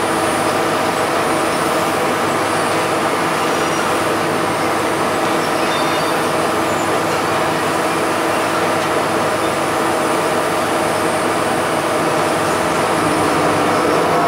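Airport ramp noise: a steady mechanical drone of aircraft machinery with several held whining tones, growing slightly louder near the end.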